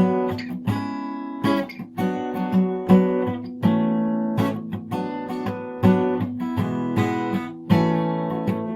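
Strummed acoustic guitar chords in an instrumental break of a song, with no singing.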